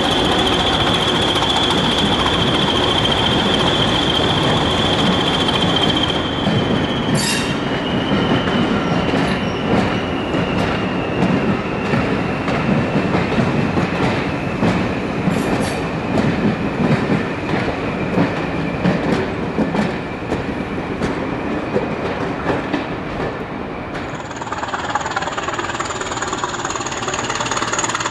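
Passenger coaches rolling by on steel rails, with a steady high wheel squeal that slowly falls in pitch, over a loud rumble and scattered clicks of wheels over rail joints. About four seconds from the end, a higher squeal takes over.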